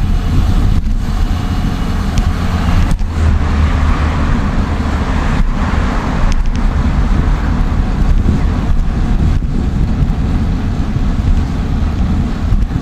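Steady wind rush and low rumble over the microphone of a bicycle riding fast, at about 28 mph.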